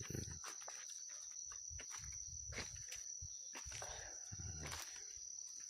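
A steady, high-pitched chorus of insects such as crickets or cicadas, with scattered short clicks and some low rustling of handling or movement.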